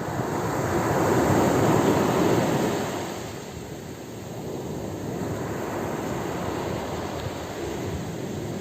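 Ocean waves breaking on a beach: a wave swells and crashes in the first three seconds, then the surf eases into a steady wash.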